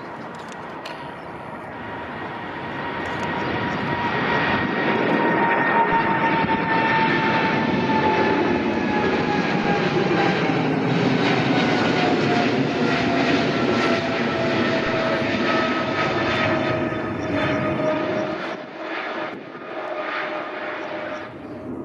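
Boeing 777-200LR's twin GE90 turbofans at takeoff thrust as the jet lifts off and climbs away: a loud jet roar with an engine whine that falls steadily in pitch as it passes. The sound swells a few seconds in, holds, and begins to fade and waver near the end.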